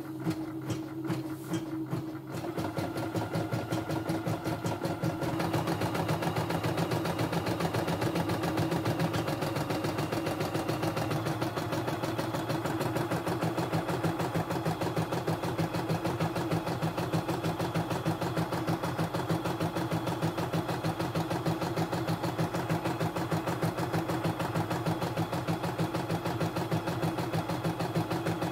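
CNY E960 portable computerised embroidery machine stitching a design. A few separate needle strokes pick up, about two seconds in, to a fast, even rattle of stitches that holds steady.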